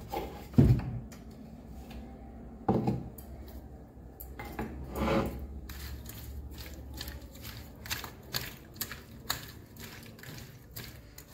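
A wooden pestle thumps in a wooden mortar, loudest about half a second in and again near three seconds. Then small sardines are tossed and rubbed by hand in a steel bowl, with many quick light clicks and clinks against the metal.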